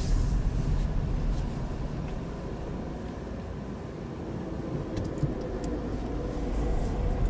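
Car cabin noise while driving: a steady low engine and road rumble with tyre hiss. It eases off through the middle and builds again near the end.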